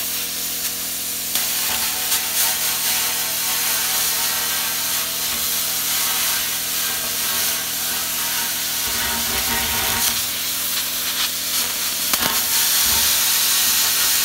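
Parkside PPS 30 A1 plasma cutter's torch cutting through a metal barrel: a steady loud hiss of the plasma arc and compressed air, with a few short crackles as it burns through the metal.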